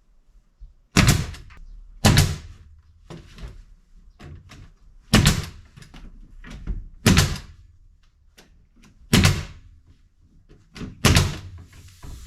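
Six loud knocks, one every one to three seconds, each dying away briefly, with lighter taps and clicks in between.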